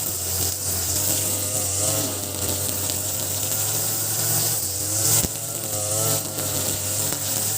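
Ogawa BG330 33cc two-stroke brush cutter engine, fitted with a 43cc carburettor, running steadily while cutting grass, its pitch wavering as the load changes. There is one sharp click about five seconds in.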